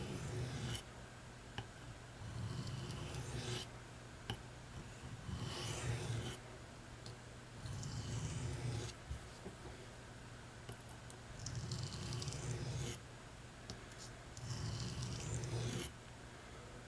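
Steel knife blade drawn in long sharpening strokes across the coarse 400-grit side of an India oilstone: six scraping passes, each about a second long, roughly every three seconds. The work is on one side of the edge, to even out the bevel.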